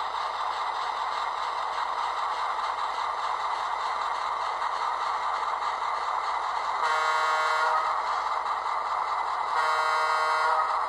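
Two horn blasts, each about a second long and nearly three seconds apart, from the sound decoder of an HO-scale EMD SW7 model diesel locomotive. They sound over a steady hissing hum while the locomotive crawls at speed step 2.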